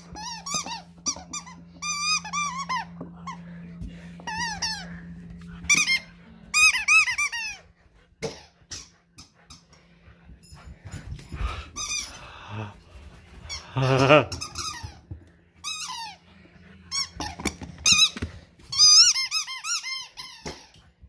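Squeaky dog toy squeaking over and over in short, wavering, high-pitched bursts as a Labrador puppy chews and squeezes it, in clusters with short pauses between. About two-thirds of the way through comes one lower, louder squeak.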